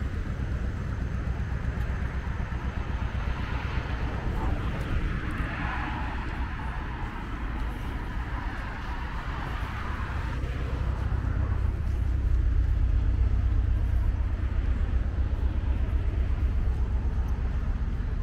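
City street ambience: a steady low rumble of traffic, with a vehicle passing that swells and fades in the first half, and the rumble growing louder in the second half.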